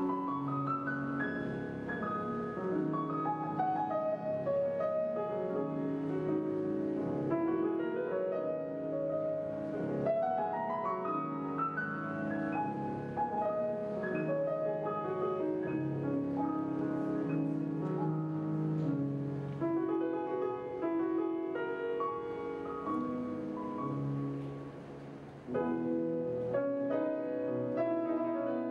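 Solo grand piano playing classical music: flowing rising runs over sustained chords. About four seconds before the end it softens briefly, then comes back in louder.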